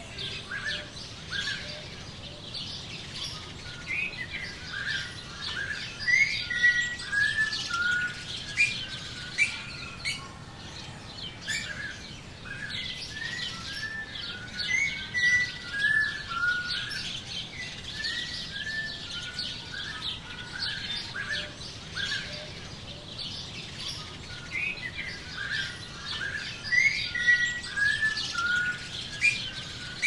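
Small songbirds chirping and calling in quick runs of short, high notes, some runs stepping down in pitch. The calls come in busier, louder spells several times.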